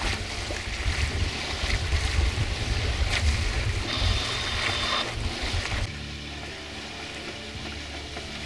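Wind buffeting the microphone over the wash of water along a sailboat's hull, under sail. The gusting rumble drops to a steadier, quieter wash about six seconds in.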